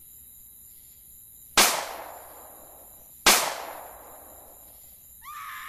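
Two loud, sharp bangs about a second and a half apart, each fading out with a short echoing tail. Near the end a high-pitched scream begins.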